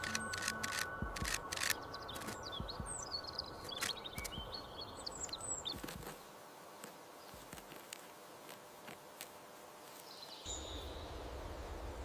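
Short high bird chirps and scattered sharp taps in the first half, over outdoor ambience; after that it is quieter, with one more brief chirp near the end.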